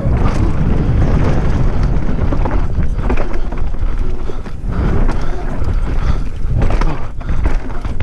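Wind buffeting a helmet-mounted microphone on a fast downhill mountain bike descent, with the tyres rumbling over a rocky dirt track and the bike rattling and knocking over the bumps.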